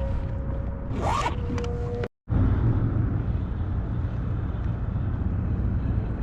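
A zipper pulled once, a short rising swish about a second in, over a steady low rumble; the sound drops out completely for a moment about two seconds in, then the low rumble goes on.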